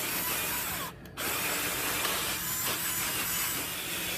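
Cordless drill spinning a round scrub-brush attachment against carpet, a steady whir with the bristles scrubbing the pile while cleaning a stain. It cuts out briefly about a second in, then starts again.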